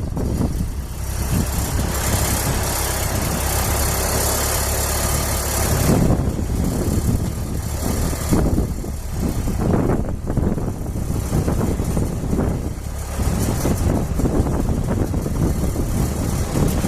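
Ford 2N tractor's four-cylinder flathead engine running. It is steady for the first several seconds, then more uneven.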